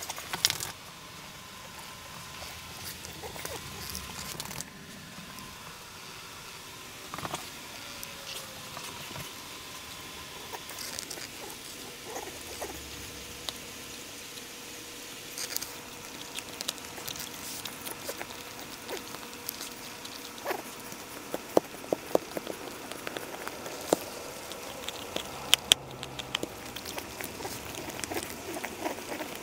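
An American Bully dog chewing and gnawing on a chew, its teeth scraping and clicking at irregular moments, with sharper, louder clicks in the last several seconds.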